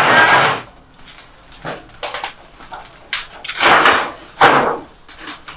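A makeshift gate of corrugated metal sheeting on a wooden frame being pushed and dragged, giving noisy scrapes and knocks: a loud one at the start, scattered light knocks, then two loud scrapes a little past the middle.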